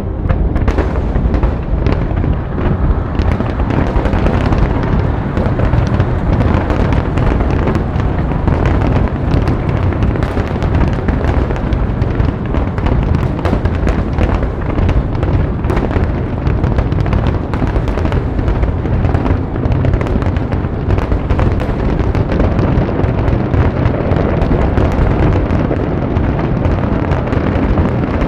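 Fireworks display in a dense, continuous barrage: deep booms overlapping with many sharp cracks and pops, with no gaps.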